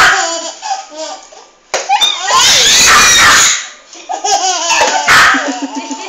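Eight-month-old baby laughing hard in repeated bursts, with a long loud burst of laughter about two and a half seconds in and a quick run of belly-laugh pulses near the end.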